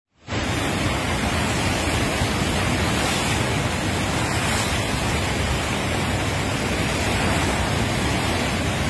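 Floodwater rushing through the open gates of a river barrage: a steady, loud rush of turbulent water that cuts in abruptly just after the start.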